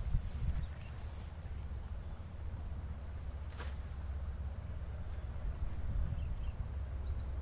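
Steady high-pitched buzz of insects, with a low rumble underneath and a single sharp click about three and a half seconds in.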